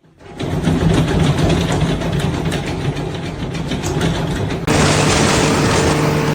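A heavy engine running loudly with a steady low hum under a dense mechanical clatter; about three-quarters of the way in the noise turns harsher and hissier.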